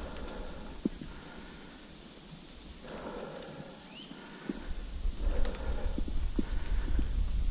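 Mountain bike rolling along a dirt singletrack, its tyres on the dirt and the bike rattling with scattered knocks over bumps. Wind rumbles on the microphone, dies away for a few seconds in the middle and comes back louder near the end.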